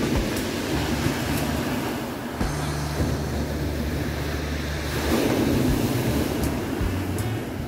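Sea surf washing onto the beach, swelling about five seconds in, with wind rumble on the microphone.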